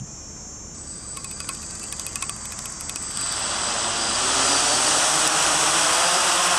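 SK S500 quadcopter's four motors and propellers spinning up from rest on the ground. A steady high whine with a run of faint ticks comes first, then about three seconds in the propeller noise rises, grows louder and holds steady.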